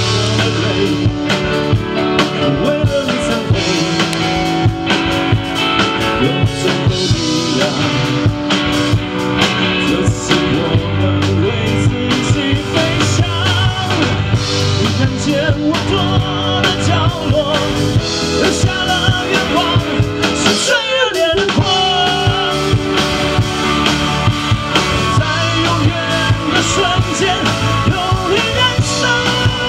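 Live rock band playing: drum kit, electric guitar and bass under a male lead singer. The low end drops out briefly about two-thirds of the way through, then the full band comes back in.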